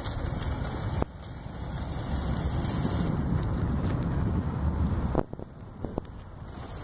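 Riding noise of an electric bike at low speed: wind buffeting the microphone and tyre rumble on pavement. The rumble drops away suddenly about five seconds in, and a few light clicks follow.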